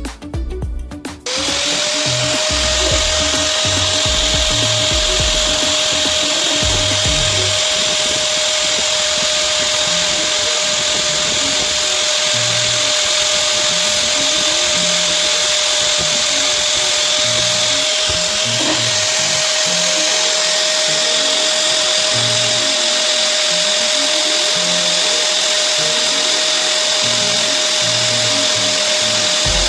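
A handheld power tool starts about a second in, spins up quickly and then runs steadily at a high, even pitch, as in grinding or sanding sheet-metal bodywork. Background music with a bass line continues underneath.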